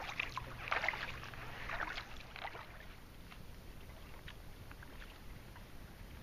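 Kayak paddle dipping into the water and splashing, stroke after stroke, with the splashes growing lighter after the first two seconds or so.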